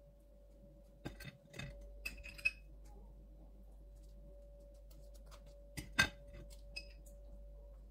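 A table knife clinking and tapping against a ceramic plate and a glass jam jar while jam is spread on crisp toast, with a few short ringing clinks around two seconds in and the loudest knock about six seconds in. A faint steady hum runs underneath.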